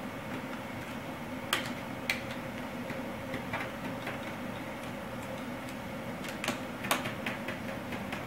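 Small irregular clicks and taps of laptop screen parts being handled during reassembly, a few sharper ones standing out, over a steady low hum.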